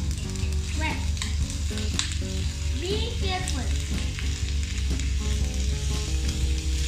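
Chopped onion, mint and coriander sizzling in hot oil in a black kadai, stirred with a wooden spatula that scrapes and knocks against the pan now and then.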